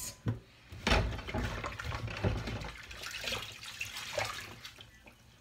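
Water running from a kitchen tap into a sink, starting about a second in and dying away near the end.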